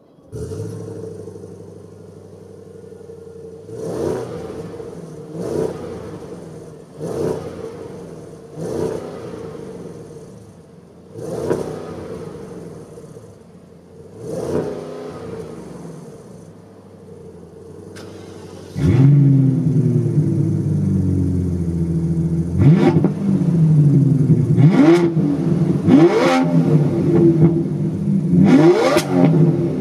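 Audi S8's 4.0-litre twin-turbo V8 idling and blipped six times, each rev cut short by the car's stationary red-line restriction. About 19 seconds in, the straight-piped 2007 BMW 760Li's 6.0-litre V12 comes in much louder and is revved hard four times.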